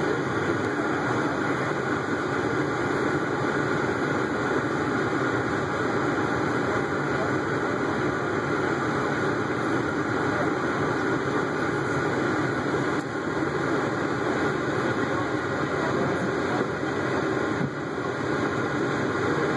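Diesel engine idling steadily, a constant rumble with no changes.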